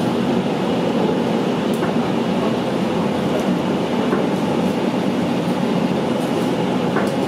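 Steady running noise inside a moving electric suburban train carriage: an even rumble of wheels on rail, with a few faint clicks.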